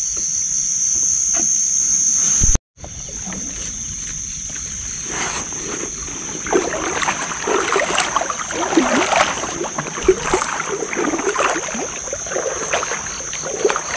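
Night insects chirring in a steady, high-pitched drone. After a brief dropout about two and a half seconds in, water splashing and sloshing builds up from about five seconds in.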